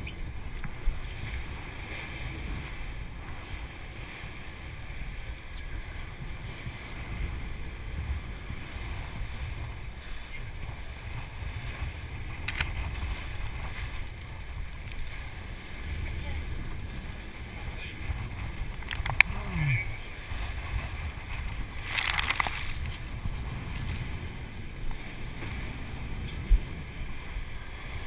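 Steady low drone of a sportfishing boat trolling, with the wash of its wake and wind on the camera microphone. A few sharp knocks come through it, and a short hiss comes about two-thirds of the way in.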